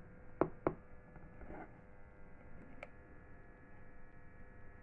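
Steady faint electrical hum, with two sharp clicks close together about half a second in and a fainter click near three seconds.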